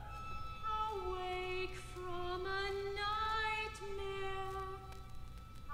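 Classical chamber music: a slow, soft melody of long held notes on a single line.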